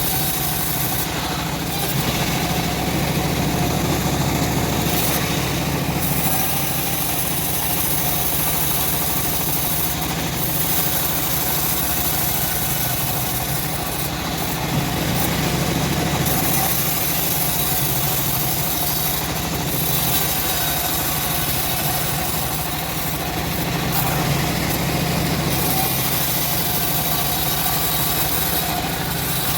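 Homemade engine-driven log bandsaw running steadily, a continuous mechanical drone.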